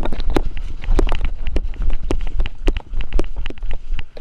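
Footsteps of a person running over woodland ground, about two heavy steps a second, with a low rumble from the body-worn microphone jolting and catching wind.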